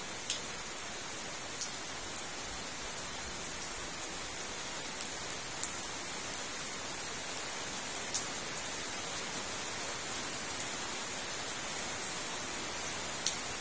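Steady rain falling on a fish pond, an even hiss broken by a few sharp ticks of single drops landing close by.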